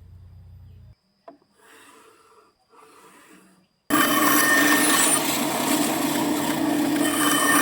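A faint hum, a click and two short soft scraping sounds. About four seconds in, a bandsaw comes in suddenly, loud and steady, cutting through wood.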